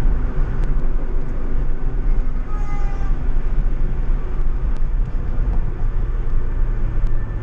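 Ford Fiesta ST150 car engine running with a steady low rumble and a few faint clicks.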